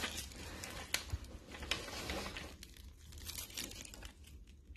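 Paper backing being peeled off a vinyl wall decal, a crinkling, crackling rustle with a few sharp clicks in the first two seconds, thinning out a little past halfway.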